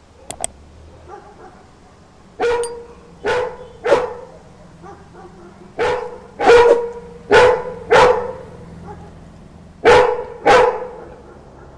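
Yellow Labrador Retriever barking: nine loud, deep barks in bursts of two or three, set off by street dogs barking outside. Two sharp clicks come just before the first bark.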